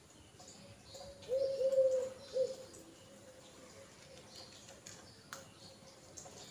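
Feral pigeon cooing: a short low coo of a few notes, starting about a second in and lasting about a second. Faint high chirps of small birds sound throughout, and there is a single sharp click later on.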